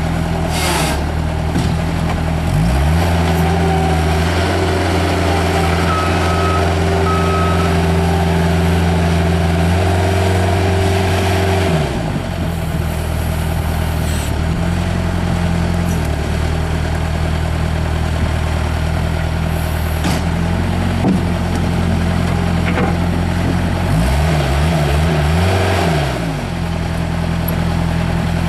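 Bobcat 753 skid steer loader's Kubota diesel engine running. It is throttled up a couple of seconds in, held high, drops back about twelve seconds in, then revs up and down again near the end. Two short high beeps sound around six seconds in.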